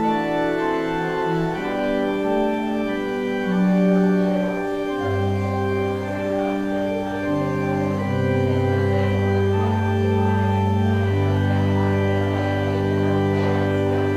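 Church organ playing the postlude in slow sustained chords, with a deep bass pedal note coming in about five seconds in and a long chord held over the last few seconds.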